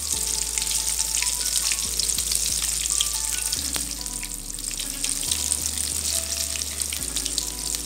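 Hot oil sizzling and crackling steadily as masala-coated cauliflower florets deep-fry in a kadai, with a dense hiss and many small pops throughout.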